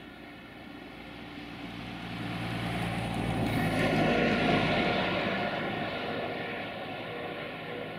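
An engine passing by: a steady hum that swells to its loudest about four seconds in, then fades away.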